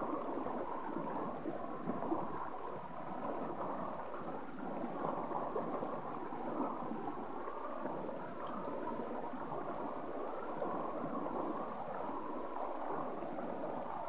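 Shallow rocky stream flowing steadily, water rippling and gurgling over and around stones, with a faint steady high-pitched tone running above it.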